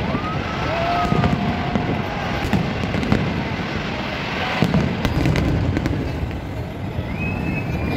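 Large aerial fireworks display: a continuous rumble of shells bursting, with sharper bangs and crackle on top and a couple of louder reports near the middle.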